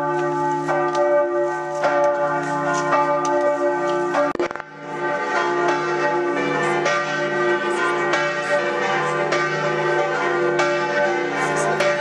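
Church bells pealing: overlapping strokes keep several bell tones ringing on together, with a brief break about four seconds in.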